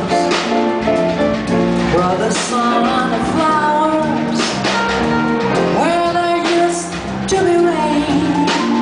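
Live jazz combo playing a slow ballad: a lead melody line gliding between notes over sustained backing chords and a drum kit.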